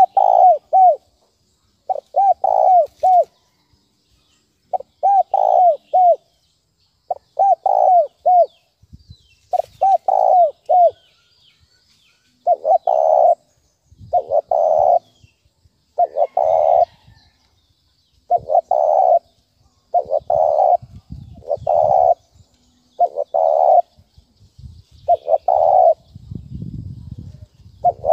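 Spotted dove cooing in the urgent 'thúc bổi' style that bird trappers play to excite decoy doves. It repeats short phrases of three or four notes about every two and a half seconds, and the phrases turn denser and come about every second and a half in the second half.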